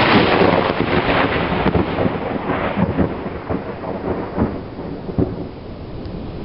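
Thunder crackling and rumbling after a lightning strike: a run of sharp cracks that thin out and fade over about five seconds.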